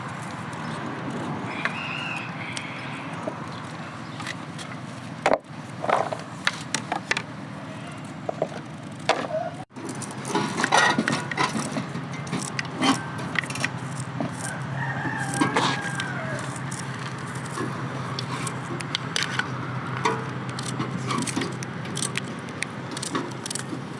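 Scattered clicks and knocks of outdoor cooking work against a steady background, with a rooster crowing in the background, most clearly about a quarter of a minute in.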